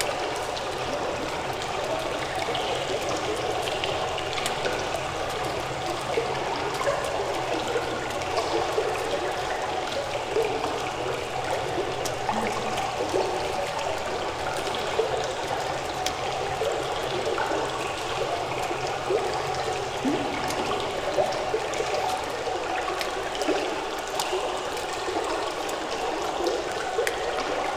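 Steady rushing of running water, like a stream, with small splashes scattered through it.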